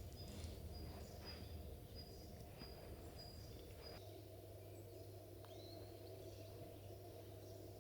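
Faint outdoor ambience: a steady low hum under a thin, high chirp repeated about twice a second, which stops about halfway through.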